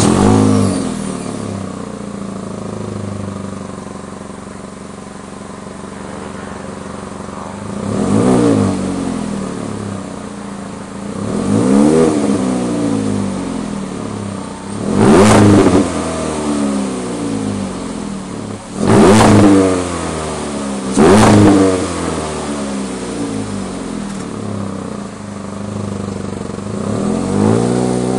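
A Chevrolet Sonic's 1.8-litre four-cylinder engine with the muffler removed, idling through the open exhaust and revved in about six short blips. Each blip rises in pitch and falls back to idle; the three loudest come in the middle.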